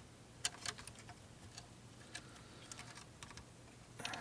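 Faint, scattered light clicks and taps of fingers handling the plastic parts and wiring inside an opened Sony ICF835L CD clock radio as a small plug connector is worked into place, over a steady low hum.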